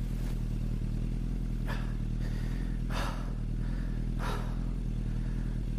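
A motorcycle engine running steadily, with three short, laboured breaths about a second and a half apart from a rider who is struggling to breathe after a stick struck him in the chest.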